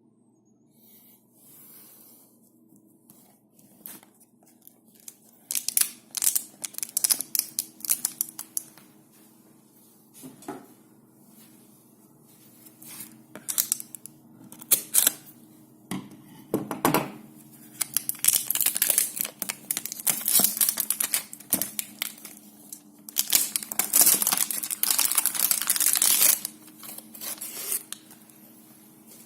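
Packaging of a phone box being torn open and crinkled in irregular bursts, with a few light knocks of handling. The tearing and crinkling grows denser and louder in the second half.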